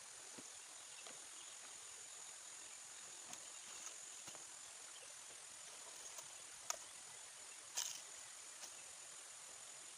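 Faint steady high-pitched chirring of insects such as crickets, with a few light clicks and knocks, the sharpest two about seven and eight seconds in.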